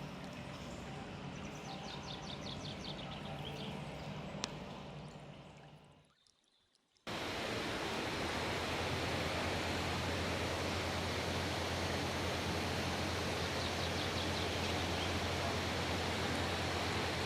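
Water running and splashing steadily. It fades out about six seconds in, then after a moment of silence a louder, even rushing sound of a mountain stream in a gorge takes over.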